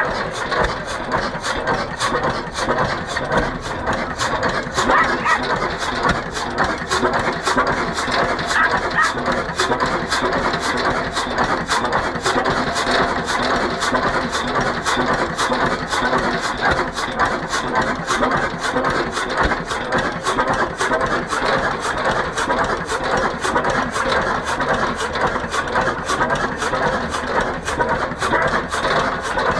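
1925 Hein 18 hp single-cylinder marine hot-bulb engine running, with an even, steady beat of sharp knocks and the clatter of its chain drive.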